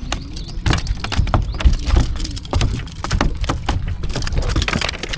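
Irregular knocks, slaps and rattles of a small barramundi being landed and handled in an aluminium boat, over a steady low rumble.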